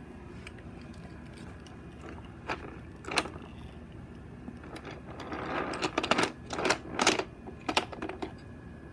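Toy train engines and track clattering as they are handled: a few separate clicks and knocks, then in the second half a short rubbing rattle and a quick run of sharp clacks as the engines knock against the track and each other.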